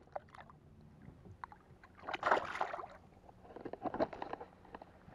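Water splashing as a bass is let go at the surface beside a boat and kicks free, in two bursts: a louder one about two seconds in and a weaker one about four seconds in.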